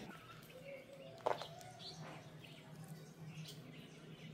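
Faint scattered bird chirps over a low steady hum, with one short, louder sound about a second in.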